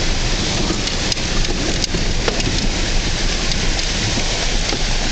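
Steady rushing noise of rain and water as a car drives through shallow floodwater covering the road.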